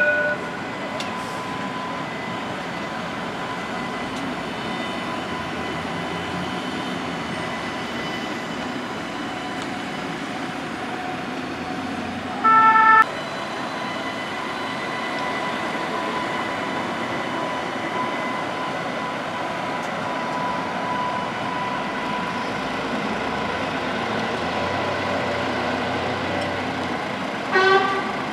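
Alstom Citadis tram sounding short pitched warning-horn blasts three times: once at the start, once about halfway, and once near the end. Under them runs the steady hum of the tram and street traffic, with a faint held whine.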